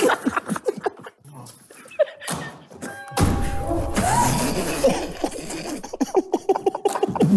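Stifled laughter and snickers from a group of men trying to keep quiet, with a sudden noisy burst about three seconds in.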